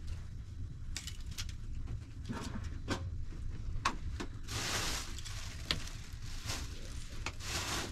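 Rustling and scuffing of people moving about on an earthen floor, cloth or felt being handled, with scattered light clicks and knocks over a low steady rumble.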